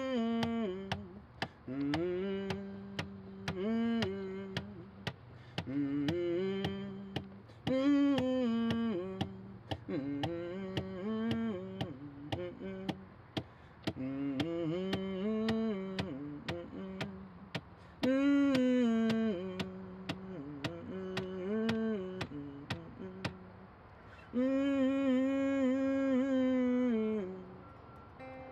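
A man's wordless vocal melody in short rising and falling phrases about every two seconds, ending in one long held note near the end. Acoustic guitar notes sound lightly underneath.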